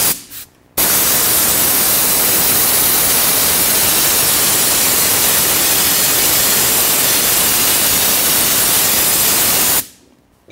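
Compressed-air canister spray gun spraying contact cement: a brief blast of air, then a loud, steady hiss for about nine seconds that cuts off sharply near the end.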